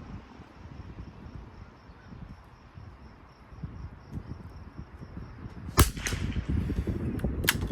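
Wind on the microphone, then a single loud, sharp .22 LR rifle shot about six seconds in, followed by a few fainter sharp cracks or clicks.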